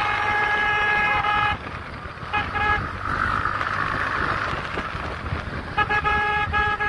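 A vehicle horn honking on the road: one long steady blast that stops about a second and a half in, two quick toots a second later, then a string of short toots near the end, over the low rumble of a moving motorcycle.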